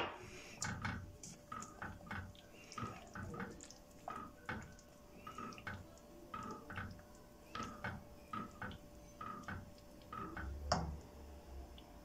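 Wooden spoon stirring a thick, wet red mixture with sugar in a stainless steel pot, knocking and scraping against the pot in an uneven rhythm of about two strokes a second, with wet sloshing. A sharper knock comes at the start and another near the end.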